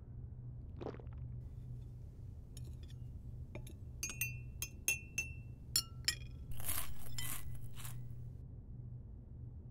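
A spoon clinking against a ceramic bowl and mug several times, some strikes ringing briefly. A louder rustle follows for about a second and a half, over a steady low hum.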